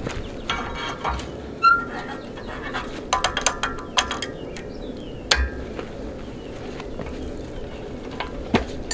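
Steel clinking and clanking in irregular knocks, some with a short metallic ring: hot bar stock and tools knocking against a scroll-bending jig as the bar is clamped on.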